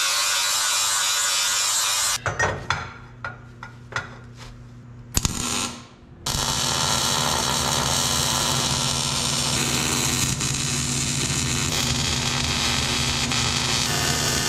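Cordless angle grinder grinding a steel tube for about two seconds, followed by a few short bursts and a sharp knock. From about six seconds in, a wire-feed (MIG) welder's arc hisses and crackles steadily as it welds steel tubing.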